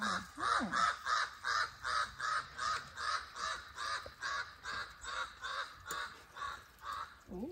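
A bird calling in a fast, even series of harsh notes, about four a second, that stops just before the end.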